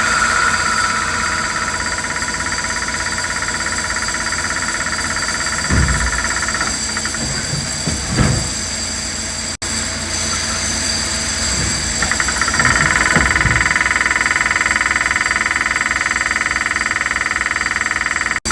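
CNC lathe running with a steady mechanical drone and a high whine. The whine fades after about seven seconds and comes back stronger near twelve seconds, with a few dull knocks in between.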